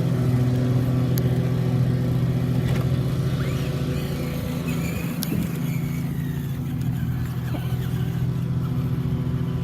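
An engine idling steadily: an even, low, pitched hum that holds the same pitch, with a few faint clicks over it.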